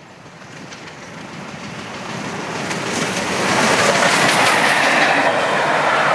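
Bulleid Battle of Britain class Pacific steam locomotive 34067 passing at speed with its train. Its exhaust and wheel-on-rail noise swell as it approaches, are loudest as the engine goes by about three and a half seconds in, then give way to the coaches clattering past.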